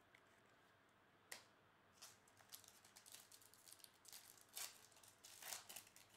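Foil trading-card pack wrapper being torn open and crinkled by hand: a single sharp click just over a second in, then a run of crackly rustles and tearing, loudest near the end.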